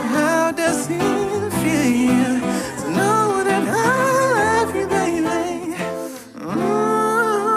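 Male vocalist singing long held notes and bending runs over an instrumental backing, with a short dip in level about six seconds in before the next held note.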